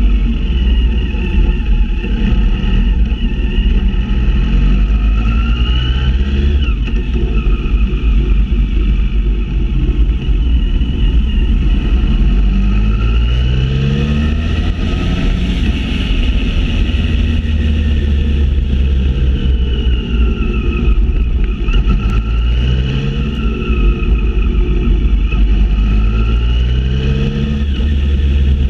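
Motorcycle engine heard from the bike itself, its pitch rising and falling again and again as it speeds up and slows down through the streets, over a steady low rumble.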